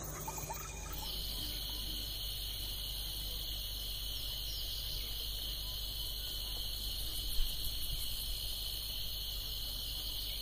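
Steady chorus of insects, a constant high-pitched buzzing trill that sets in about a second in. One short, sharp sound stands out about seven seconds in.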